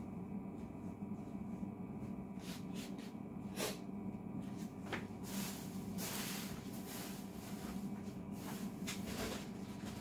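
A steady low hum, with a few soft clicks and a stretch of fabric rustling as a blanket is tucked over a bed and someone moves about.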